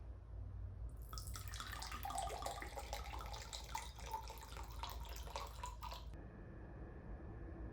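Liquid running in a splashing stream for about five seconds, starting and stopping abruptly.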